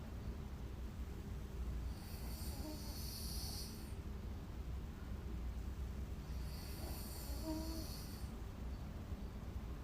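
A woman snoring in deep sleep: two long, hissy breaths, about four and a half seconds apart, over a low steady rumble.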